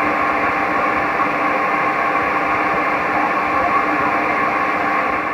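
Shortwave radio receiver's audio on the HF band: a steady hiss of static with a few faint, steady tones running through it, an unidentified signal the listener can't place.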